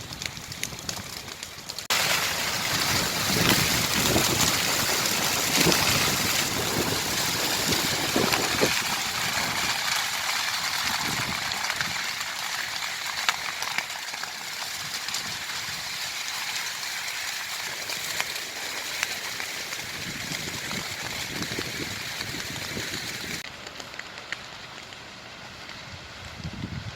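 Dry grassland burning: a dense crackle of grass fire with low rushing gusts under it, starting abruptly about two seconds in and cutting off sharply near the end.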